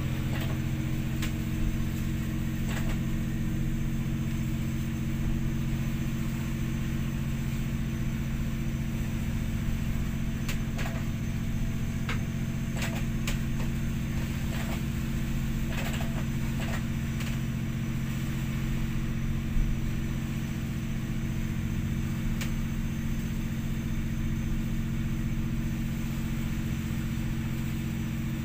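Steady low drone of a ship's engine heard inside the wheelhouse while under way, with a few light clicks or rattles scattered through the middle.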